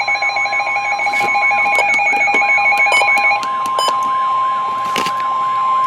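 NOAA Weather Radio warning alarm tone: a steady 1050 Hz tone with a short break near two seconds. For the first three and a half seconds a fast electronic beeping and a higher tone sound over it, along with a repeating warble, and then the steady tone carries on alone. The tone signals that a new warning is about to be read.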